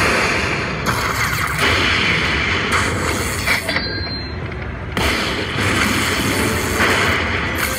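Aristocrat Lightning Link slot machine playing its win sound effects: crackling electric lightning and thunder effects in surges a second or two long, as the bonus win counts up on the winner screen.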